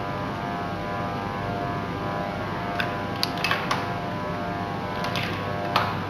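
Tensile test rig's drive running with a steady hum as it pulls a 15 mm plastic push-fit coupler apart, the load climbing toward the roughly 1300 N at which the fitting fails. Several sharp clicks come in from about three seconds in, the loudest near the end.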